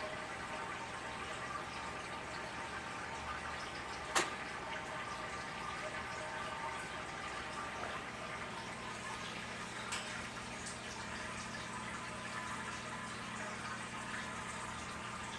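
A baby green-winged macaw sneezing: one short, sharp sneeze about four seconds in and a fainter one near ten seconds, over a steady low hiss.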